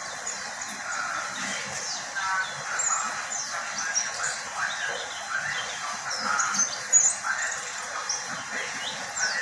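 Pleci (white-eye, Zosterops) singing: a string of short, high chirps and twitters repeating irregularly throughout.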